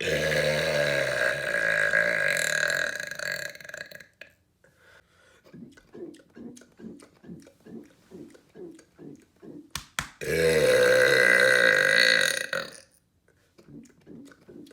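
Two long, loud, deliberate man's burps: the first lasts about four seconds, and the second starts about ten seconds in and lasts nearly three. A fainter quick rhythmic pulsing fills the gap between them.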